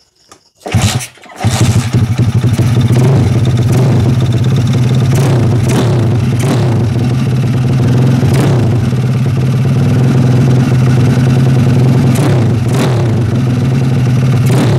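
Carbureted Lifan 160cc single-cylinder four-stroke motorcycle engine, just fitted, starting: a short first burst, then it catches about a second in and settles into a steady idle with a few brief sharp noises over it.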